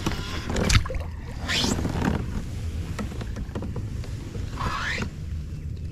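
Kayak-fishing water noise with three short rising swishes of rod and braided line, as a snagged topwater frog lure is jerked free of grass or a limb.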